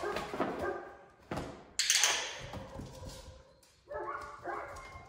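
A German Shorthaired Pointer puppy making short high whimpering cries, with a sharp knock and a scuffle of movement near the middle.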